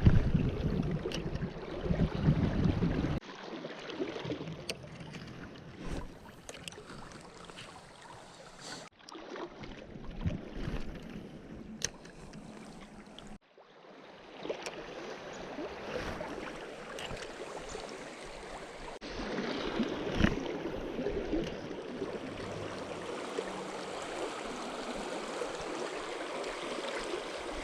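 Steady rush of river water, with a loud low rumble in the first few seconds and scattered small clicks and knocks. The sound breaks off and changes abruptly several times at edits.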